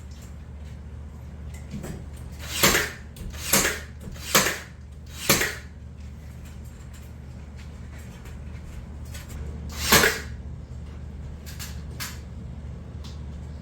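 Knocks and clunks of hardware being fitted during a ceiling fan installation: four sharp knocks about a second apart, a few faint clicks, then one louder knock later on, over a steady low hum.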